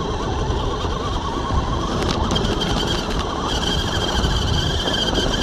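Electric motor and gear train of a radio-controlled rock crawler whining steadily as it drives, the pitch shifting partway through.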